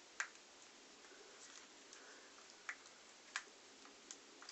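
Four faint, short plastic clicks, spread over a few seconds, from fingers working the battery and memory-card compartment door of a Canon compact camera as it is being pried open; otherwise near silence.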